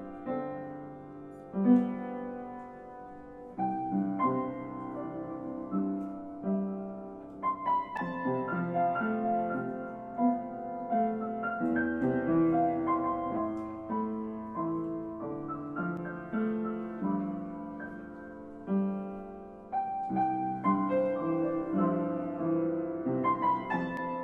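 Background piano music: held chords under a slow melody.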